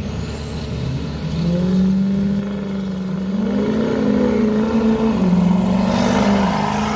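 Two turbodiesel pickup trucks launching off the line in a dirt drag race. The engines run at full throttle and get louder from about a second in as they accelerate past, the engine note climbing and shifting in steps. A faint high whistle rises in pitch over them during the first few seconds.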